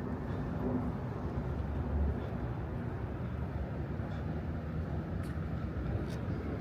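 Steady low outdoor rumble and hiss of urban background noise, with a faint hum that stops about a second in.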